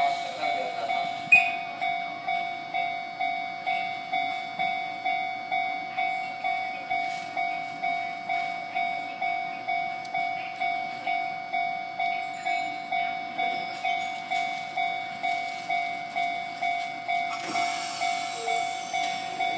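Level-crossing warning bell ringing steadily, an evenly repeating pitched electronic clang a little under twice a second, with a sharp click about a second in. Near the end a Chikuho Electric Railway tram starts to pull away from the platform, adding a rising rush of running noise.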